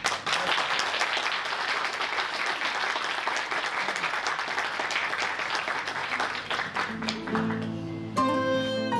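Audience applauding, a dense clapping that dies away about seven seconds in as music with sustained notes comes in.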